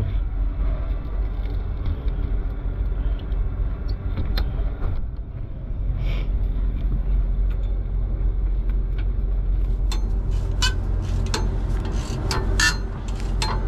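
Diesel truck engine idling with a steady low rumble. Several sharp clicks and knocks come near the end.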